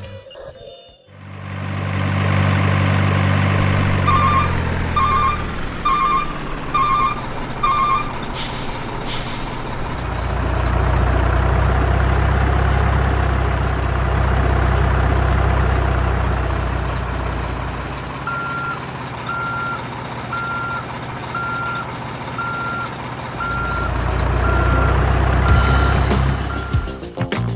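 Truck engine running, with two runs of reversing beeps about once a second and a short air-brake hiss about nine seconds in.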